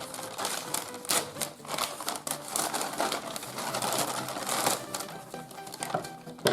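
A shipping package being opened by hand: packing material crinkling and rustling, with quick crackles and clicks.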